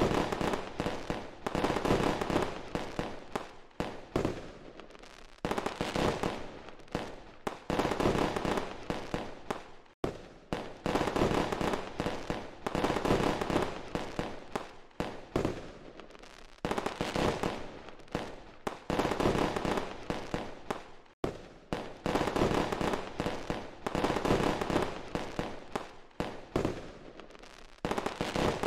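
Fireworks sound effect: dense volleys of bangs and crackling shells, swelling and easing in waves every few seconds. It cuts out abruptly twice where the sound loop restarts.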